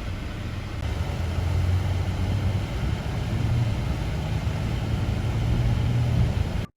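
Car on the move: steady engine and road rumble with a low hum, cutting off abruptly near the end.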